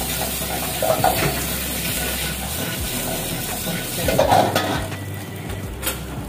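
Chopped onions and egg sizzling in a hot wok, stirred and scraped with a steel ladle. The ladle grates louder against the wok about a second in and again around four seconds in, over a low steady hum.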